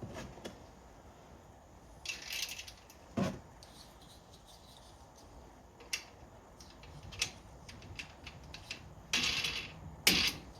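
Irregular clicks, knocks and short rattles of metal bike-rack hardware being handled and fitted, with a louder knock near the end.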